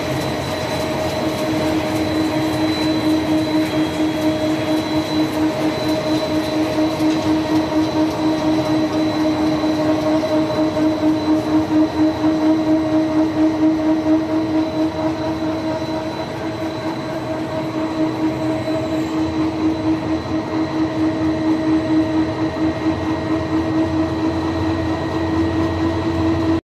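Steel coil slitting line running: its drives and rollers give a steady mechanical hum with a thin high whine and a quick, even pulsing as the sheet feeds through the slitter and rewinds.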